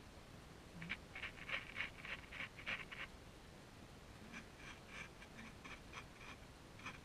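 Light scratching: a quick run of short rasps about a second in, then fainter, sparser ones from about four seconds in.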